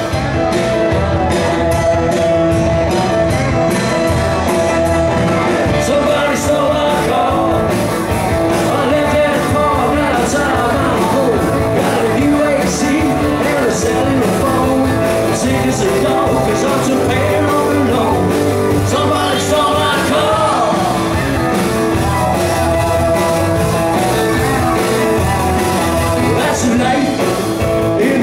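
Live rock band playing: electric guitar, bass guitar, drums and keyboard, with a sung vocal over a steady beat.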